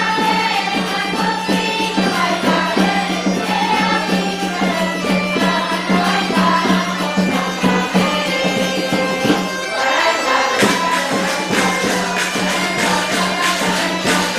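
Traditional Galician folk tune on bagpipes (gaita), with a steady drone under the melody and percussion keeping time. The drone drops out briefly about ten seconds in, then comes back.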